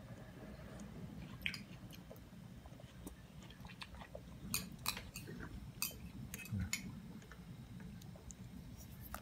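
Hot pot broth simmering: a low steady rumble with scattered small pops and ticks.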